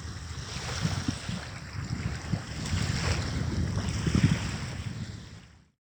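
Wind buffeting the microphone in gusts over the wash of sea water along the shore, then fading out near the end.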